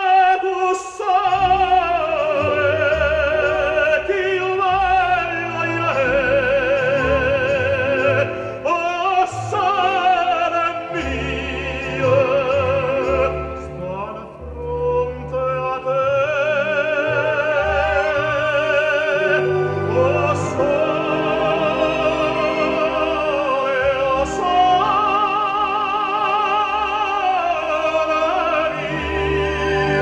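Recorded opera played back on a hi-fi system: a high operatic voice singing long phrases with a wide, even vibrato over orchestral accompaniment with sustained bass notes, through a 300B tube amplifier.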